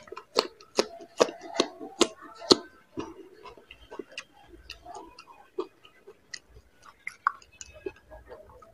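Close-up crunching and chewing of crisp panipuri (golgappa) shells in the mouth: rapid sharp crackles over the first three seconds, thinning out to scattered crunches.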